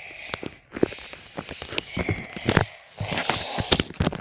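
Close handling noise near a tablet's microphone: rustling, with scattered taps and knocks and a louder rustle about three seconds in.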